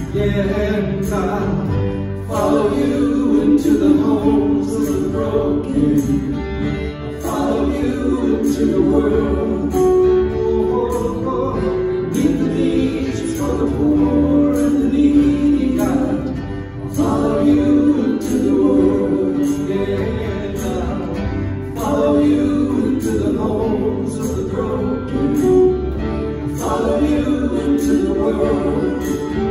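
Live acoustic worship band playing a song: several voices singing together over steadily strummed acoustic guitars.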